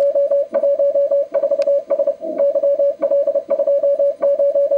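Amateur-radio Morse code (CW) received on the 12-metre band through a transceiver speaker: a single tone of about 600 Hz keyed in rapid dots and dashes. The station is booming in with a very strong signal.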